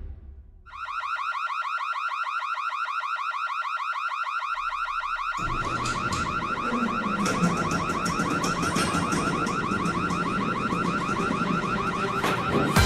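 Cartoon electronic alarm sound effect: a rapid, steady warbling tone that starts about a second in. From about five seconds in a lower, rougher layer of sound joins beneath it.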